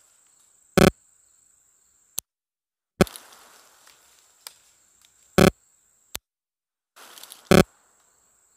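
Heritage Rough Rider .22 LR single-action revolver firing four shots, about two seconds apart, the hammer thumb-cocked before each shot.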